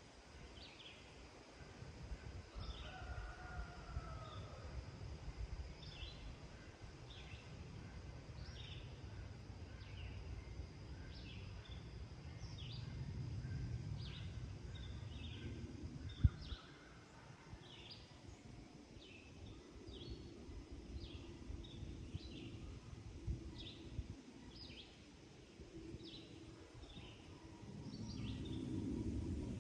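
A bird giving short high chirps over and over, roughly one a second, over a low wind rumble, with a faint steady high tone behind. A single sharp knock sounds about halfway through.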